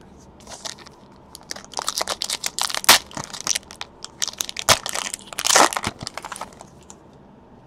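Foil trading-card pack being torn open and its wrapper crinkled: a rapid run of sharp crackles and rips, loudest about three seconds in and again in a longer burst more than halfway through.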